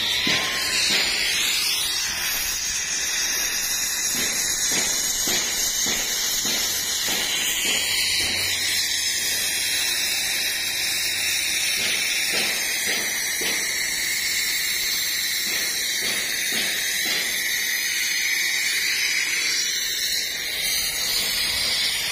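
Footsteps crunching on loose gravel under a steady high hiss.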